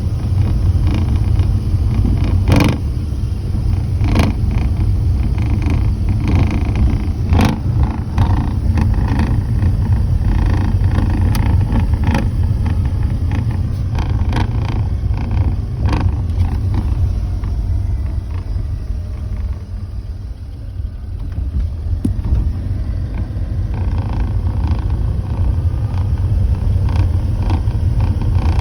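Porsche 987.2 with a steady low rumble and irregular sharp rattles and clicks over it. The rattles come from the front metal panel of the engine bay, behind the driver's side.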